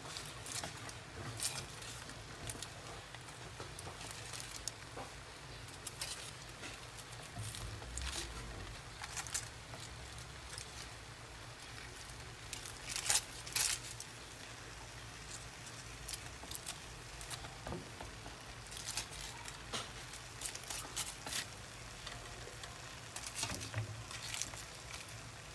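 Crumpled aluminium foil rustling and crackling as a foil-wrapped fish is peeled open with a metal spatula and fingers in a steel wok, with scattered clicks and scrapes and a louder burst of crinkling about halfway through.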